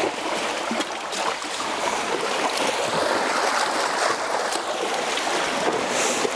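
Steady rushing noise of surf and wind.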